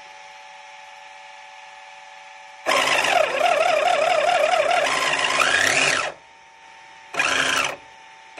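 Traxxas X-Maxx's freshly fitted replacement brushless motor and drivetrain whining under throttle on its first test. There is one run of about three seconds, wavering in pitch and then rising sharply as it spins up, followed by a short blip near the end.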